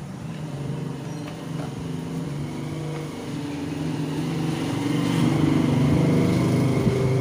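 An engine running steadily, growing louder over the last few seconds.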